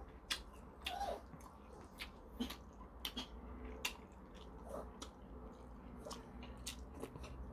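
Faint eating sounds: a man chewing and sipping spoonfuls of kimchi stew, with soft, irregular mouth clicks scattered through.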